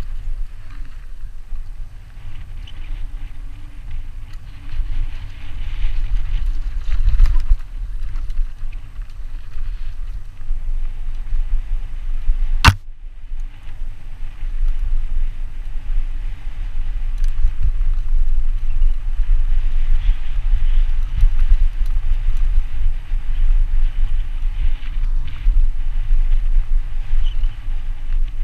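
A steady low rumble of wind on the microphone and the mountain bike's tyres and frame rattling over a dirt downhill trail, with one sharp knock about halfway through.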